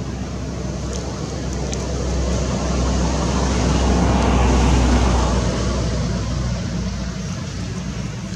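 Steady rushing noise with a low rumble that swells to a peak midway and fades again, as a road vehicle passes by.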